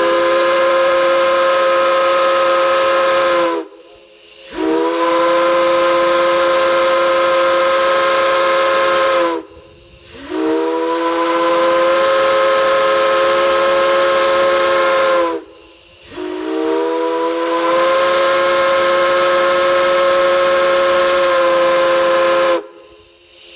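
Steam chime whistle of Durango & Silverton K-28 2-8-2 locomotive No. 476 blowing four long, loud blasts. Each blast sounds several notes at once and slides up in pitch as it opens.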